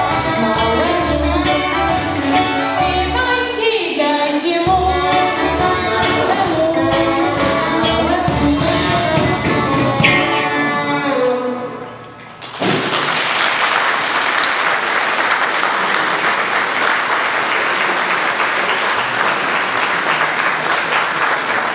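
A song on electric guitar with a voice singing, which ends about twelve seconds in. Then a congregation applauds steadily.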